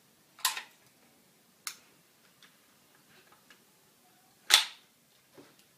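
Mechanical clicks of an LR300 airsoft electric rifle's charging handle and fake bolt catch being worked: a click about half a second in, a sharp tick a second later, a few faint ticks, then a loud snap at about four and a half seconds, with a small click near the end.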